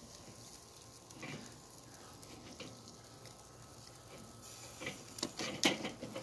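Beef back ribs sizzling faintly over charcoal on a Weber kettle grill, with a few sharp clicks of metal tongs against the grate and ribs near the end.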